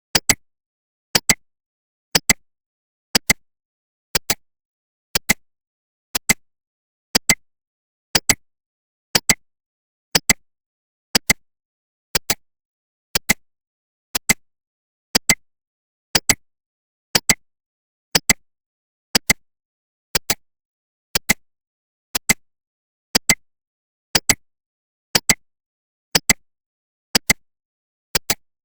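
Countdown timer's clock-tick sound effect: a sharp double click once a second, evenly paced, with silence between.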